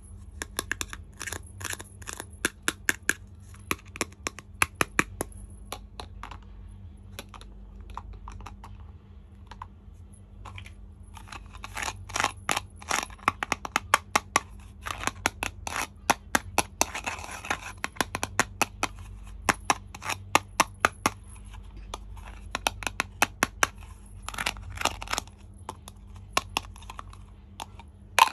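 Small plastic toy kitchen pieces and their packaging being handled during an unboxing: many sharp, irregular clicks and taps. About seventeen seconds in there is a brief stretch of tearing or crinkling, with a steady low hum underneath throughout.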